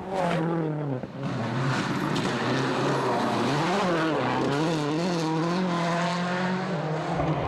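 Rally car engine heard from inside the car, revving up and down repeatedly through gear changes and throttle lifts, with a brief lift about a second in.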